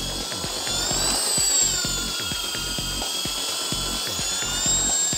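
Electric motor whine of a WLtoys V913 brushless RC helicopter. Its pitch rises about a second in, falls back, then rises again near the end as the throttle changes.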